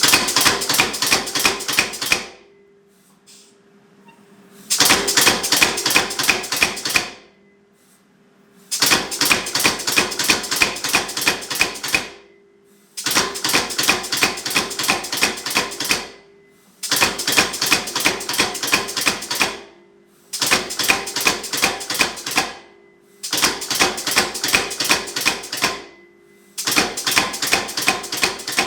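Rapid hammer blows forging a hot steel bar, in eight bursts of two to three seconds each with short pauses between, as the bar's neck is drawn down. A faint steady hum runs underneath.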